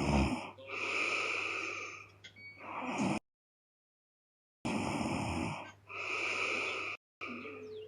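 A woman snoring heavily in her sleep: two breath cycles, each a low rattling snore running into a breathy hiss, with a pause of dead silence of about a second and a half between them.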